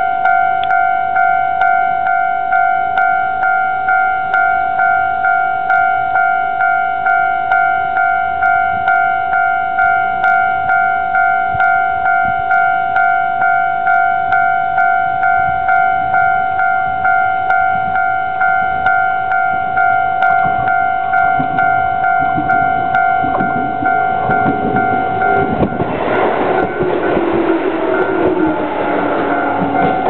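Japanese level-crossing warning bell ringing steadily, about two strokes a second. Near the end a Shizuoka Railway 1000 series electric train comes up to the crossing, its wheels and running gear growing loud with a falling whine.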